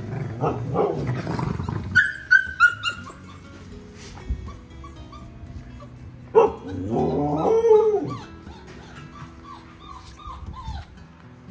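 One-month-old wolfdog puppies (gray wolf × German Shepherd hybrids) whimpering and yelping in short falling calls, with a longer wavering whine about six seconds in, over background music.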